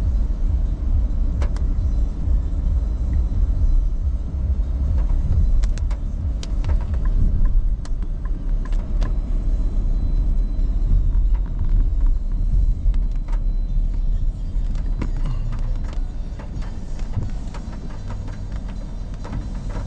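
Car cabin road noise on a wet road: a steady low rumble from the car driving, with scattered sharp ticks. The rumble eases a little near the end as the car slows in traffic.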